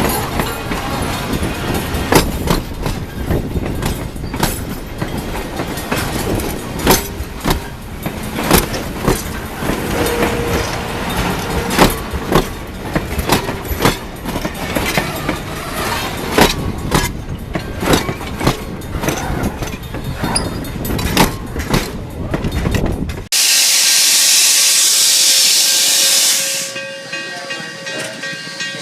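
Steam locomotive #7470 working, a dense rumbling clatter with many irregular knocks. About 23 seconds in, the sound changes abruptly to a loud steam hiss lasting about three seconds. After that it is quieter, with a few faint steady tones.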